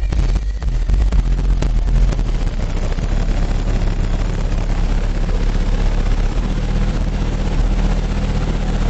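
Very loud bass from twenty-four 12-inch Rockford Fosgate T2 subwoofers playing deep, steady bass notes, so loud that the recording distorts into a noisy rumble. The bass pitch shifts about three seconds in and again about six seconds in.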